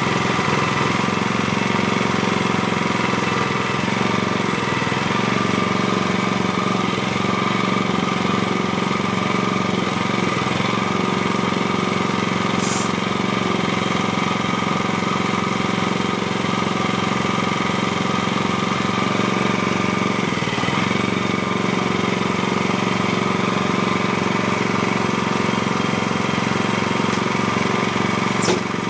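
Small gasoline engine of a portable hydraulic sawmill running steadily at high throttle to drive the hydraulics. Two brief high-pitched squeaks come through, one about halfway and one near the end.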